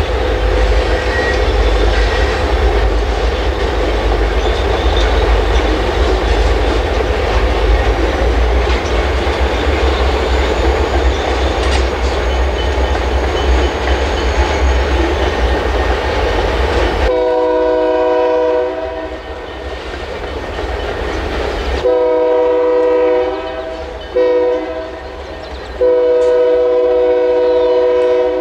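Loaded stone hopper cars rolling past with a steady rumble and clickety-clack over the rail joints. About two-thirds through, the lead locomotive's multi-note air horn sounds long, long, short, long: the grade-crossing signal.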